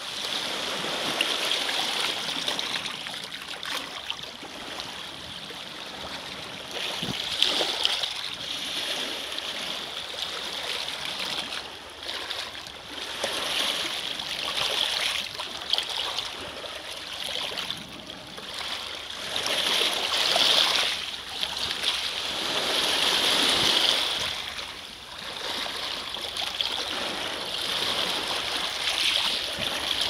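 Small lake waves washing in over a shore of rounded pebbles. The water swishes and splashes in surges that swell and fall every few seconds.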